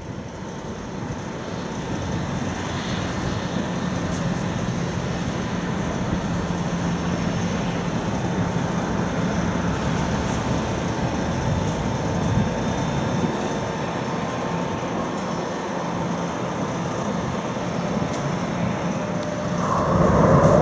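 Airbus A340-300's four CFM56 jet engines running at high thrust during the takeoff roll: a steady roar with a faint hum and whine in it, growing louder near the end.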